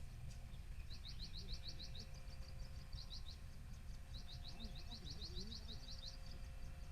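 A small bird singing: runs of quick, high chirps repeated several times, the longest run about two seconds long past the middle, over a low steady rumble.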